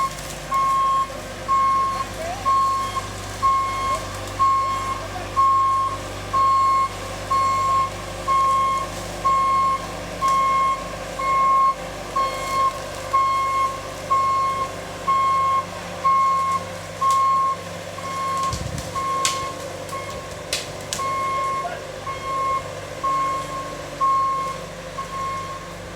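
A vehicle's reversing alarm beeps steadily, about once a second, over a running engine. It pauses briefly about three quarters of the way through, where a few sharp clicks or knocks are heard.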